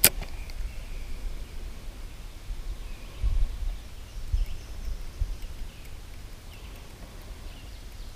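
Outdoor ambience: faint birdsong chirping throughout, with low rumbling bumps of wind or handling on the microphone a few seconds in. One sharp click sounds right at the start.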